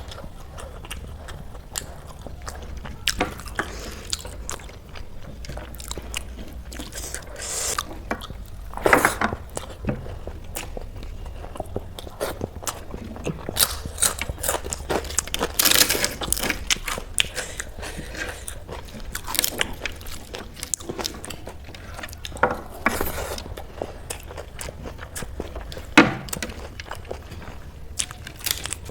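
A person eating: irregular chewing and biting with small clicks and crackles, and a few louder crunches.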